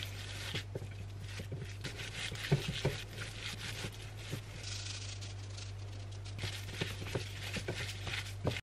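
Hands kneading and squeezing raw minced meat with chopped herbs and onion on a plate to mix a burger mixture: soft, irregular squishing and small wet clicks over a steady low hum, with a brief sharp sound at the very end.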